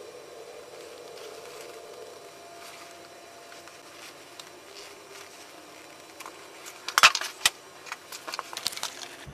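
A faint steady hum, then a run of sharp clicks and knocks in the last three seconds, the loudest about seven seconds in.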